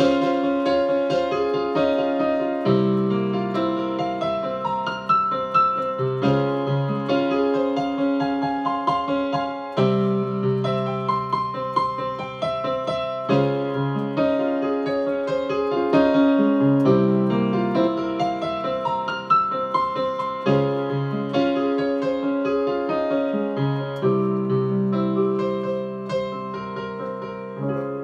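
Digital piano played solo: a steady stream of right-hand notes over low left-hand chords that change about every three to four seconds.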